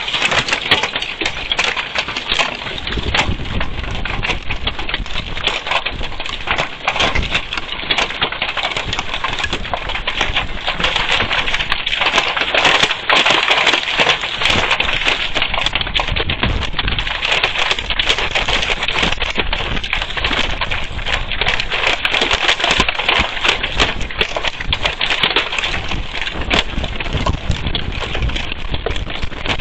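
Heavy hail coming down with rain: a dense, unbroken clatter of hailstones striking a hard surface, steady throughout.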